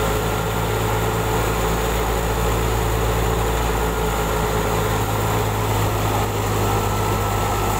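Tractor-driven wheat thresher running steadily while wheat sheaves are fed into it: a continuous, even mechanical drone with steady humming tones.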